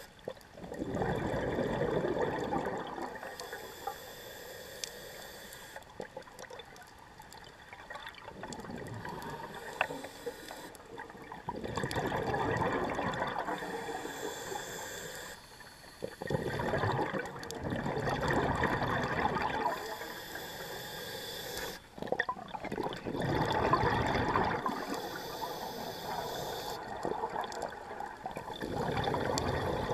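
Scuba diver's exhaled breath bubbling out of the regulator, recorded underwater, in loud bubbling bursts about every five or six seconds with quieter stretches between as the diver breathes in.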